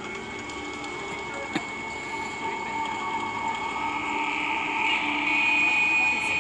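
Film soundtrack heard through loudspeakers: an eerie drone of held high and middle tones that swells louder over the last couple of seconds, with one sharp click about a second and a half in.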